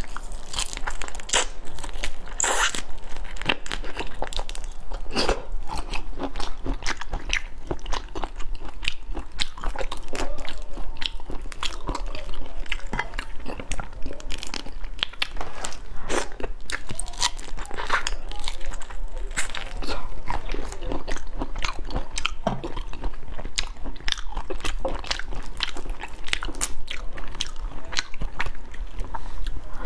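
Close-up eating sounds of whole shell-on prawns being bitten and chewed, with many small, irregular crunches and clicks of shell.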